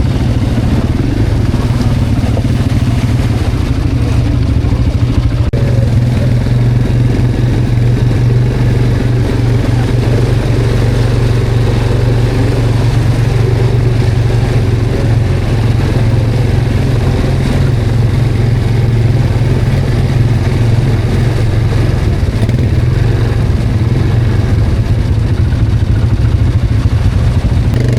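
Quad bike (ATV) engine running loudly and steadily under way, with small rises and falls in speed but no pauses.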